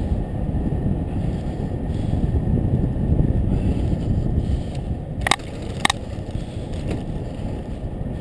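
Bicycle riding on a paved path: a steady low rumble of tyres on the pavement and wind on the microphone, with two short, sharp clicks about half a second apart a little past halfway.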